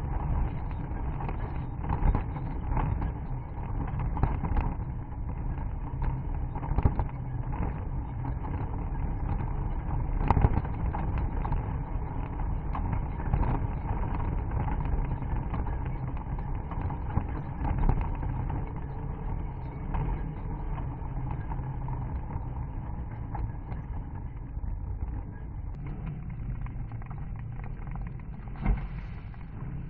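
Off-road vehicle's engine running steadily under load over a rough dirt track, with a few sharp knocks and jolts as it bounces over the ruts.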